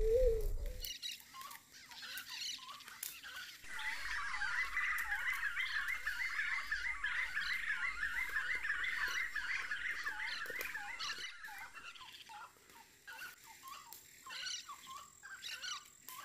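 Wild forest animal calls: a long run of rapid repeated chattering notes from about four seconds in until about eleven seconds, over scattered short chirps, after a brief low wavering call that stops about a second in.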